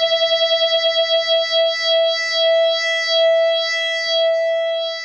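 Background music: one held synthesizer note, pulsing quickly at first and then steadier, starting to fade near the end.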